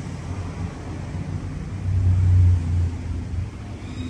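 A steady low rumble that swells louder for about a second around two seconds in.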